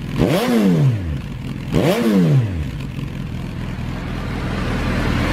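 Suzuki GSX1300BK B-King's inline-four engine through Yoshimura twin carbon-fibre silencers, blipped twice from idle, each rev rising sharply and dropping back, then settling to a steady idle.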